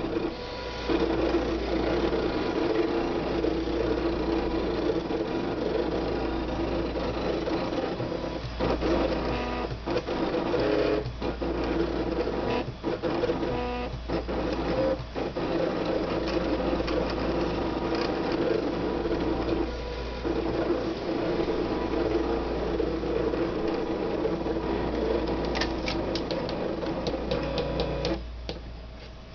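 Cricut Expression electronic cutting machine cutting a shape from paper: its motors whir as the mat feeds back and forth and the blade carriage travels, the hum shifting in pitch and stopping briefly several times between moves. It dies away near the end as the cut finishes.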